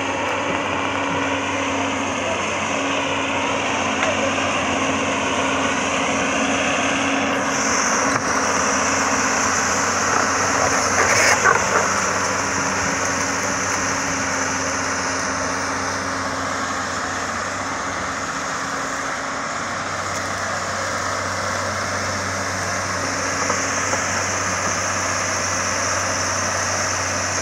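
Hyundai crawler excavator's diesel engine running steadily, with a brief sharp noise about eleven seconds in.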